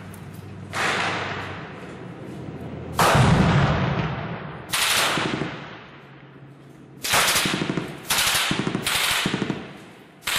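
Gunfire in a street battle. Single reports come about a second, three seconds and five seconds in, the one at three seconds the heaviest. From about seven seconds on come three short bursts of automatic machine-gun fire and another report near the end. Every report trails off in a long echo.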